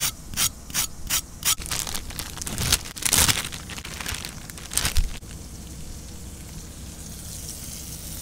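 Plastic packaging of sliced cheese crinkling and rustling as it is handled and opened: a quick run of sharp crackles in the first second and a half, then louder rustles about three and five seconds in. After that a faint steady sizzle of a burger patty frying in a cast iron skillet.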